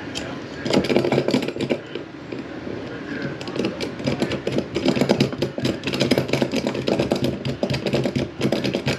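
Cordless power drill running in spurts to drive screws, its motor pitch steady under fast ticking, louder for about a second early and again through the second half.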